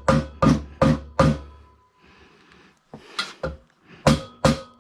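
A hammer striking steel in quick blows, about two to three a second, each with a short metallic ring: four blows, a pause, then more near the end. The blows are driving tight-fitting welded steering parts back together, a fit the builder puts down to the steel shrinking a little.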